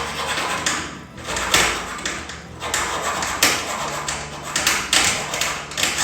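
A bare hacksaw blade, worked by hand, sawing back and forth through the steel shackle of a padlock in quick, uneven strokes, about ten in all.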